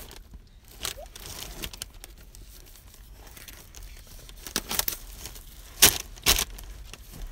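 Album packaging being torn open and crinkled by hand: scattered rustling with a few sharp rips, the two loudest close together near the end.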